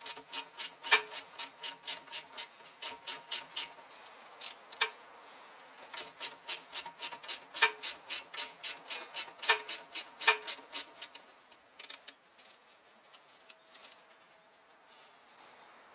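Ratchet wrench clicking fast and evenly, about five clicks a second, in two runs with a pause between, then only a few scattered clicks from about eleven seconds in.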